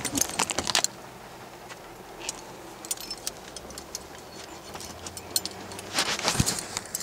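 Phone being handled close against clothing: scattered light clicks and rustles, thickest in the first second and again near the end.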